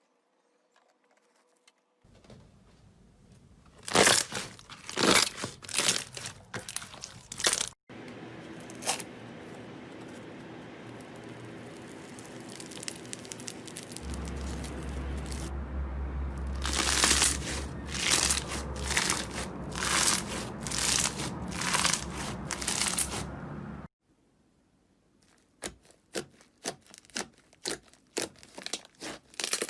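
Slime being squeezed and pressed by hand, giving runs of sharp crackling, crunching pops, in several short clips cut one after another.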